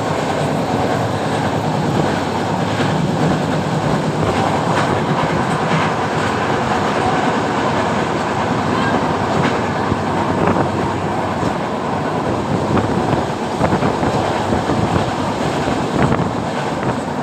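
Train running along the track: a steady rumble with the wheels clacking over the rails at irregular intervals.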